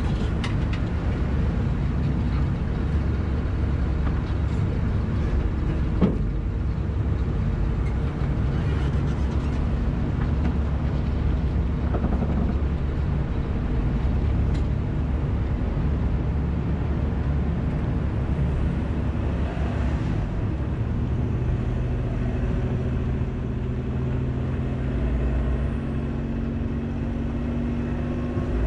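Ferry engine running with a steady low hum. There is a single sharp knock about six seconds in, and the engine note rises in pitch in the last several seconds.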